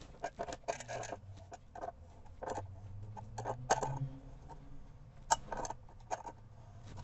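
Plastic sink drain fittings being screwed tight by hand on the underside of a composite sink: irregular light clicks and scrapes of plastic threads and parts, with one sharper click about five seconds in.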